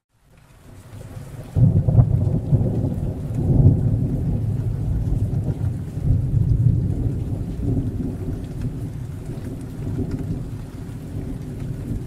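Rain with a long roll of thunder. After a brief gap, a deep rumble builds and breaks in sharply about a second and a half in, then slowly dies away under the rain.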